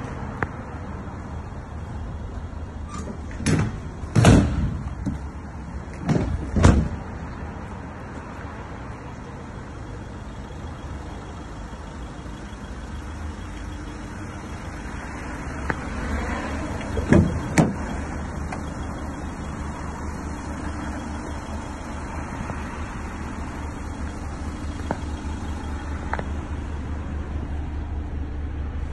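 Vauxhall Movano van doors being shut: heavy clunks about four and six seconds in, and another pair of clunks near seventeen seconds, over a steady low outdoor rumble.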